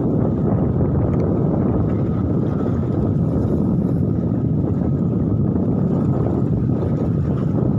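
Steady low rushing noise of wind and sea, heavy on the microphone, with no breaks or distinct knocks.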